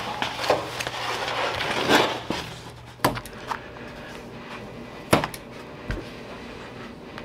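Stiff vinyl sheet rustling and crinkling as it is handled, then a couple of sharp clicks from a hand pattern notcher snipping notches into the edge of a floor pattern.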